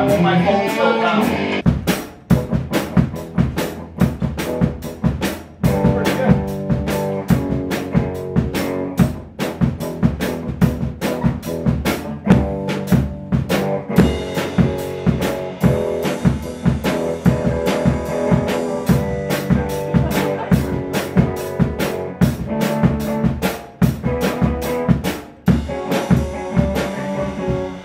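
Drum kit played in a steady run of quick hits on snare, toms and cymbals by a young beginner. The drumming starts about two seconds in, after a short tail of guitar music.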